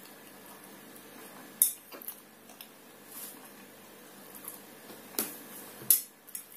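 A metal fork clinking against a plate of buckwheat a few times while a person eats, with two clinks close together near the end.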